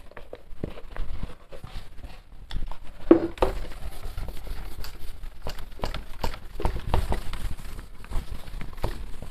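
A handheld duster wiping marker writing off a whiteboard: quick back-and-forth rubbing strokes, a dense scratchy swishing that starts about three seconds in, with a few light knocks before it.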